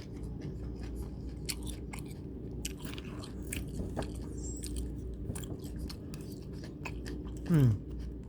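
A person chewing a mouthful of corn salsa close to the microphone, with many small wet clicks and crunches. Near the end comes a short falling "mm" from the same person.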